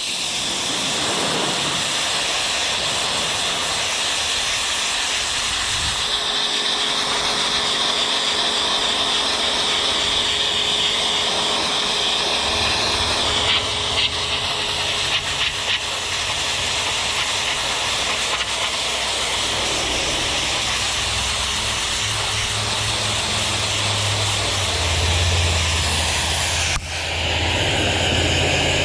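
Greenworks 2300 PSI electric pressure washer spraying: a steady loud hiss of high-pressure water with the electric motor and pump running underneath. It starts suddenly at the beginning and briefly drops out and picks up again near the end.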